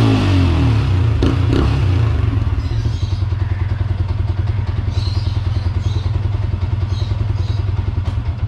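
Yamaha Sniper 150 single-cylinder four-stroke engine breathing through a Mody5 Power Pipe aftermarket exhaust. The pitch drops from a rev right at the start, then the engine settles into a steady idle with an even, rapid exhaust pulse.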